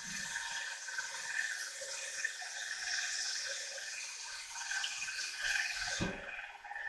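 Electric mixer running steadily, kneading stiff bread dough in a steel bowl. There is a short knock about six seconds in.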